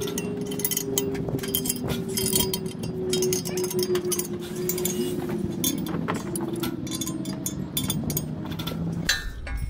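Ratchet spanner clicking and steel clinking as the bolts on a steel barrier post's base plate are turned. Under it a vehicle engine runs steadily, its hum drifting slightly lower and stopping near the end.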